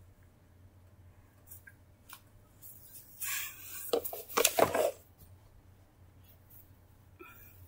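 Plush toys being handled and moved by hand: a burst of fabric rustling with a few sharp clicks between about three and five seconds in, otherwise quiet room tone.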